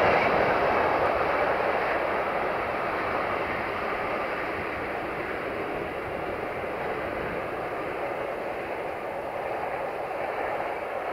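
Freight train tank wagons rolling away over the rails: a steady rumble of wheels on track that fades over the first few seconds as the train recedes, then holds low.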